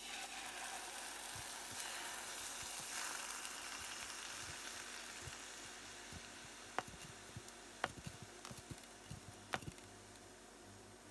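Soy-based steak sauce (Miya no tare) hitting a hot pan and sizzling at once, bubbling as it is heated down. The hiss slowly dies away, with a few sharp pops near the end.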